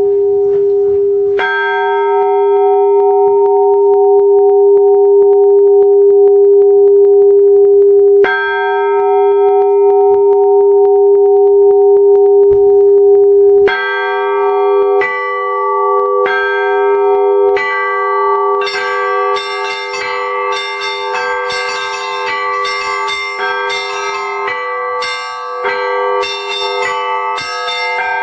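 Orthodox church bells ringing. A bell is struck twice, several seconds apart, its tone ringing on between strokes. About halfway in the strokes come roughly once a second, and from about two-thirds in smaller bells join in a rapid, dense peal.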